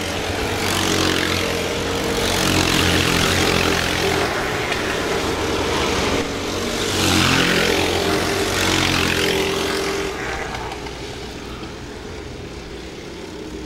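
Racing kart engines running at speed as a pack of karts passes, the sound swelling and falling as each group goes by, then fading as they move away near the end.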